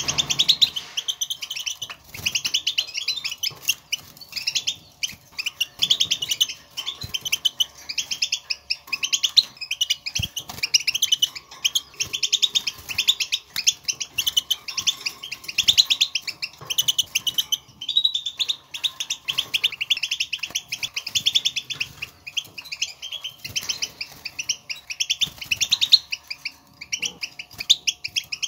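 European goldfinch twittering in rapid runs of high, quick notes with brief pauses: the chattering 'batbata' contact call that goldfinches use to call to one another and announce their presence.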